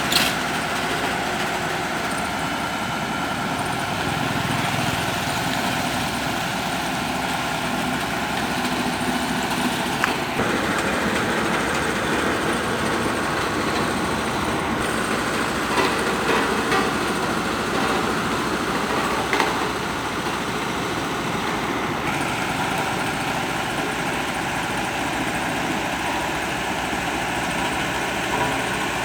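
Heavy construction machinery running steadily, a continuous engine drone whose character changes abruptly about ten seconds in and again about twenty-two seconds in.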